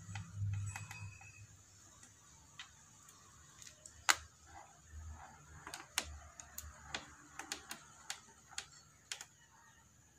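Phillips screwdriver driving a small screw into a plastic motorcycle body panel: irregular light clicks and ticks of the tool and screw, the sharpest about four and six seconds in.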